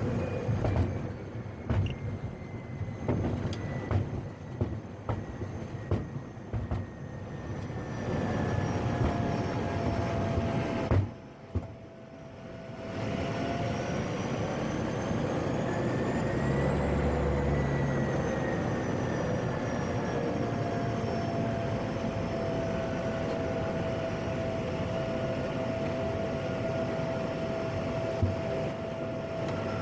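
PAC 750 turboprop's engine and propeller running: a steady drone with whining tones that glide in pitch as power changes. There are scattered clicks in the first few seconds, a brief drop in level about eleven seconds in, and a rise and fall in pitch around seventeen seconds in.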